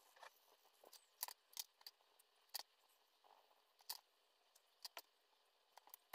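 Faint, scattered clicks and taps of wooden colored pencils being picked up, handled and set down against the page and table. There are about ten sharp ticks at uneven intervals over near silence.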